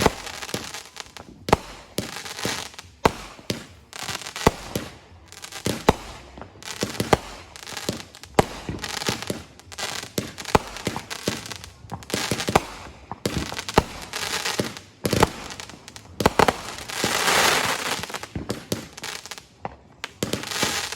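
Consumer firework cake going off: a long run of sharp bangs at uneven intervals, with a denser crackling stretch a few seconds before the end.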